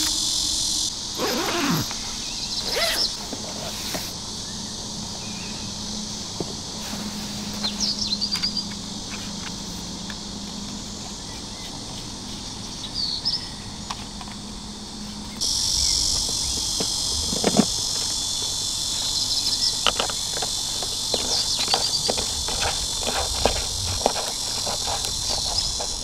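A steady, high chorus of insects outdoors. About a second in comes the rustle of a fabric storage bag being unbuckled and unzipped, and through the second half there are light plastic clicks and knocks as fan parts are lifted out and handled. A few short chirps are heard near the middle.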